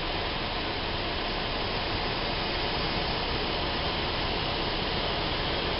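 Steady engine and wind noise inside the cabin of a light training aircraft in flight, an even, unbroken rush.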